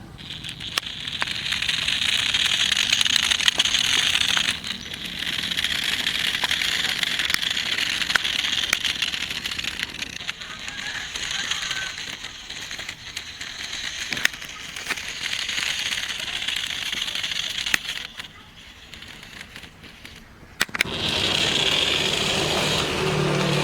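Toy remote-control car driving over rough ground: a hissing, crackling rattle of tyres and small parts that swells and fades several times as it comes and goes. It drops away about eighteen seconds in, and a steadier hum takes over near the end.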